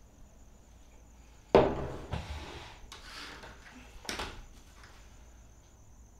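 A sudden loud bang about one and a half seconds in, followed by a second knock, a rustling and another sharp bang near four seconds, over steady cricket chirping.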